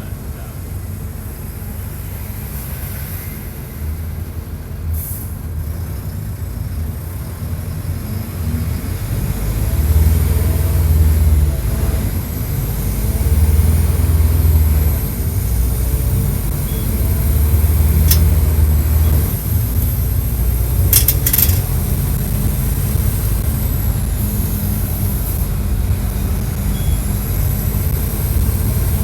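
Mercedes-Benz OF-1722 bus's six-cylinder turbodiesel, heard close to the engine and worked at high revs. It gets louder about a third of the way in and then rises and falls in repeated surges as the bus accelerates. A few sharp clicks sound near the middle.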